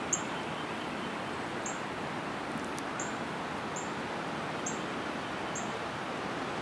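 A small bird giving a short, high chirp about five times, every second or so, over a steady outdoor hiss.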